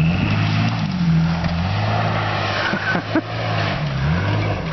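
Off-road 4x4's engine running under throttle, its pitch shifting as the driver works the gas, with several quick rev rises and drops near the end.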